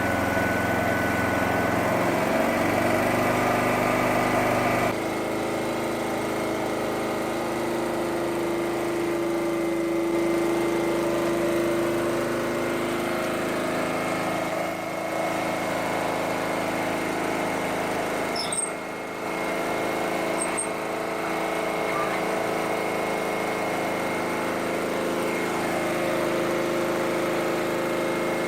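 Small generator engine running on propane fed straight into a carburettor held fully open, a steady engine note whose tone changes abruptly about five seconds in as the gas flow at the bottle is adjusted to set its speed.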